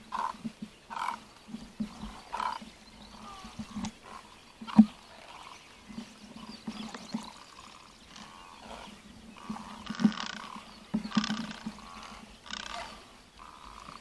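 Low, harsh croaking calls from marsh wildlife, repeating every half second to a second, with higher call notes mixed in. A single sharp click about five seconds in is the loudest sound.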